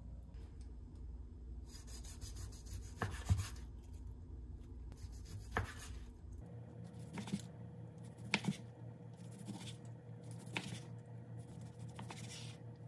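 Kitchen food-preparation handling: several bouts of scraping and rubbing with a few light knocks, over a low steady hum.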